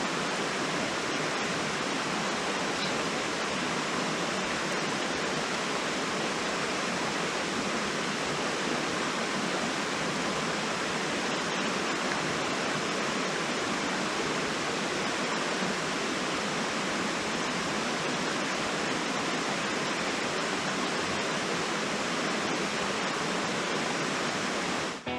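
Steady rushing of a mountain river flowing through a gorge, a continuous even wash of water noise.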